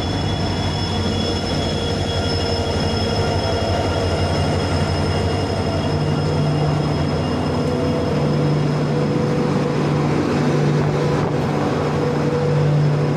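Passenger train with LHB coaches rolling slowly past along a platform as it arrives, with a steady rumble and low hum.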